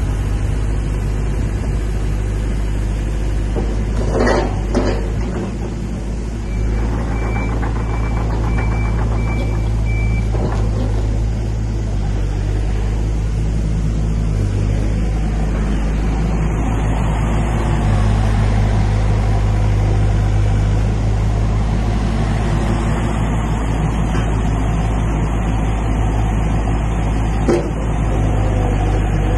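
Yanmar VIO80 excavator's four-cylinder diesel engine running under hydraulic load while the machine is worked, the engine note getting louder about two-thirds of the way through. A couple of heavy clunks come about four seconds in, a short run of high beeps follows, and there is a sharp knock near the end.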